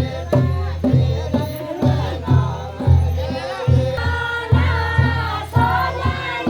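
Voices singing a pahari chanchari folk song over a steady drum beat, about two beats a second.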